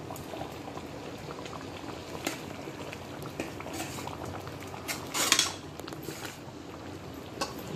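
Thick chickpea gravy simmering and bubbling in a metal pan, with a steel spoon clinking and scraping against the pan as it is stirred. The loudest clatter comes about five seconds in.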